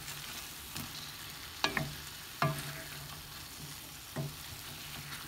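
Wooden spoon stirring diced potatoes and frozen spinach in a cast iron skillet, knocking against the pan four or five times over the steady sizzle of the frying masala.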